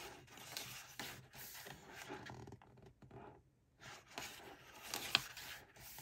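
Glossy pages of a K-pop album photobook being turned and smoothed by hand, rustling and sliding, with a short pause about halfway through and a crisp tap a little before the end.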